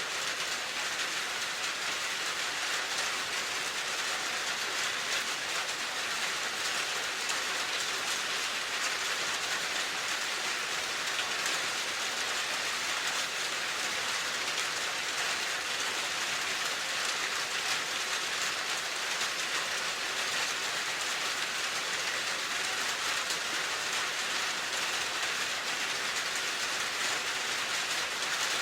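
Steady rain falling, an even hiss of many fine drops without a break.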